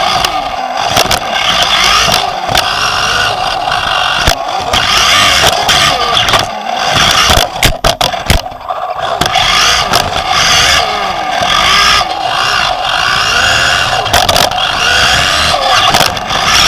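Onboard sound of a 1/10 2WD electric off-road buggy racing: its brushless motor and geartrain whine, rising and falling with the throttle. Sharp knocks from the chassis hitting jumps and bumps come throughout, with a cluster of knocks about halfway through.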